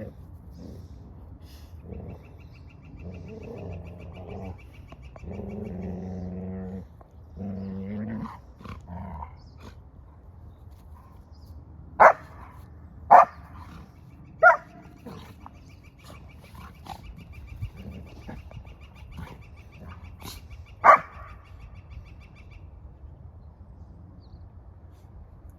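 Golden retrievers playing: drawn-out growls for the first eight seconds or so, then four short, sharp, loud bursts from a dog, three about a second apart around the middle and one more later.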